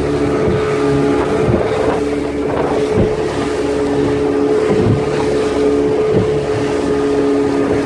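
Motorboat engine running steadily at speed, with wind and water rushing past and a few sharp thumps as the hull slaps the waves.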